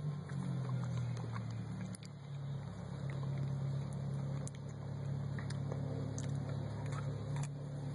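A steady low motor hum with scattered faint clicks.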